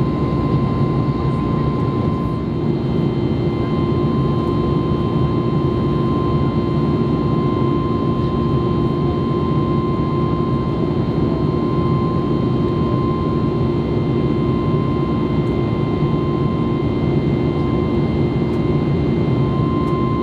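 Steady cabin noise inside an Airbus A321neo airliner in flight: an even rush of air with the constant drone of the jet engines and a steady high whine.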